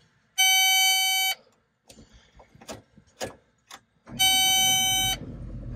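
Caterpillar 329F excavator's key-on warning buzzer sounds one steady beep of about a second, followed by several clicks. A second beep sounds as the diesel engine cranks, and the engine then catches and settles into a steady low idle near the end.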